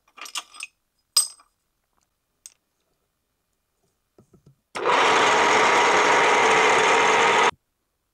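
A few short metal clinks as bar stock is handled, then a drill press running steadily with a constant whine for nearly three seconds, drilling a metal bar; it starts and stops abruptly.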